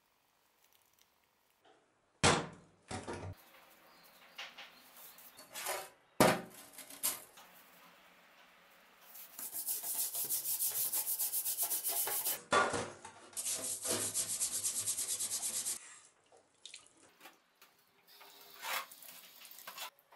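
Rusty iron axe head being scrubbed with a brush in a stainless steel sink, fast even back-and-forth strokes in two long spells, cleaning off the sludge left by electrolysis rust removal. Two sharp knocks come before the scrubbing.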